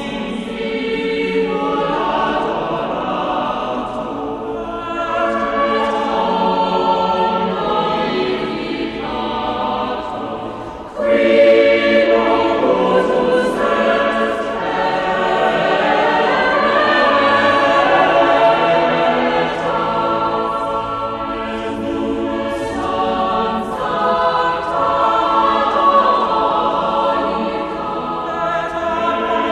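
Choral music: a choir singing held chords, getting suddenly louder about eleven seconds in.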